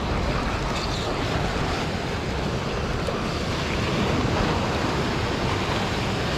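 Ocean surf washing in steadily, with wind buffeting the microphone.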